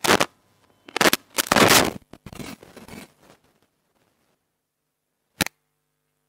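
Cloth rubbing and scraping on a clip-on lapel microphone as its wearer moves, in several loud bursts over about three seconds, then a single sharp click about five and a half seconds in.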